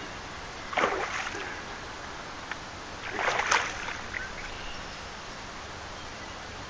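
Water splashing in two short bursts, about a second in and again about three seconds in: a hooked pike thrashing at the surface as it is brought to the landing net.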